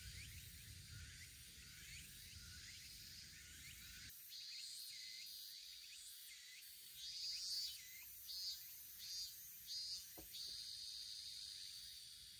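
Crickets trilling in a steady high drone that swells into louder pulses several times, with faint repeated chirps lower down. A low rumble in the first four seconds stops abruptly.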